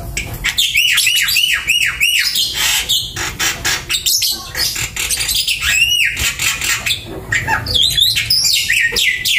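Lovebirds chattering: fast runs of sharp, high chirps, one burst in the first couple of seconds, scattered calls in the middle and another rapid burst near the end.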